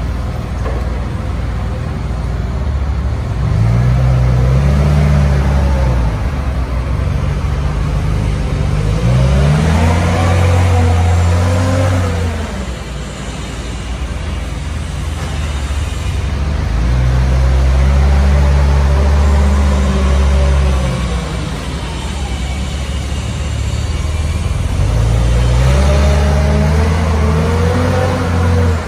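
Propane-fuelled engine of a Hyster S80FT forklift running and revving up and easing off about four times, its pitch rising and falling with each rev.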